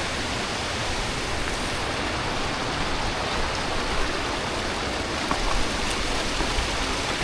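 Waterfall: falling water crashing and rushing in a steady, even roar close by, with low wind buffeting on the microphone.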